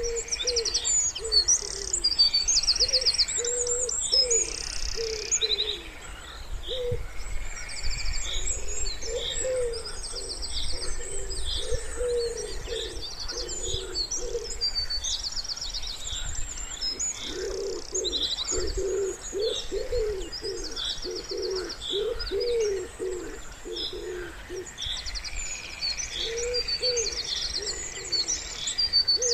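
Wood pigeons cooing in repeated low phrases, in several bouts, over a busy chorus of small songbirds' high chirps and trills.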